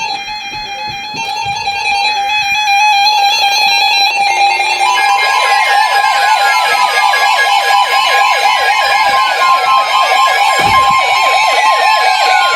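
Weather radio warning alarms: steady alert tones from the receivers, joined about five seconds in by a second steady tone, a fast warbling siren-like alarm and falling sweeps repeating every couple of seconds. They signal an incoming severe-weather warning, here a tornado warning.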